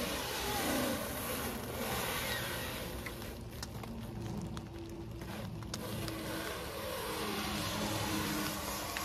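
Clear plastic stretch wrap being pulled off its roll and wound around tree trunks, the film squealing in repeated sliding pitches and crackling as it stretches.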